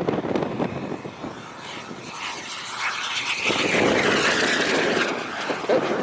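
Radio-controlled model airplane flying past: its motor noise swells from about two seconds in, is loudest around four seconds, then fades, with gusty wind buffeting the microphone at the start and end.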